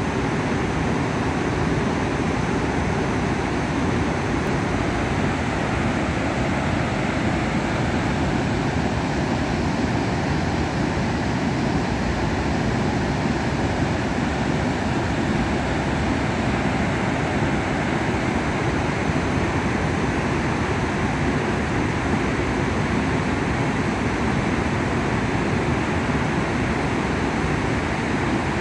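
Sakuma Dam's spillway discharge: water released through the open gates rushing down the concrete chute and churning in the basin below, a steady, unbroken rush of water.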